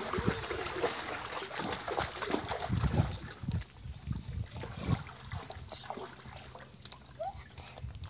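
Water splashing and sloshing in a shallow inflatable paddling pool as a person jumps in and moves about, with a few low thumps about three and five seconds in, the splashing dying down toward the end.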